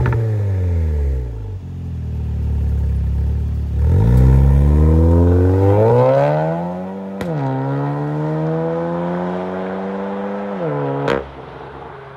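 Porsche Macan 2.0T turbocharged four-cylinder with a catless downpipe and Fi Exhaust valved cat-back. A rev falls back, then about four seconds in the car pulls away, its exhaust note rising, dropping sharply at an upshift with a crack about seven seconds in, and rising again. The note falls off as the throttle closes, with a sharp pop about eleven seconds in, then fades into the distance.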